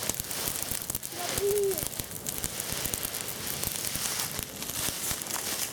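Bonfire of dry autumn leaves crackling, many small irregular pops over a steady hiss, with a brief faint voice about a second in.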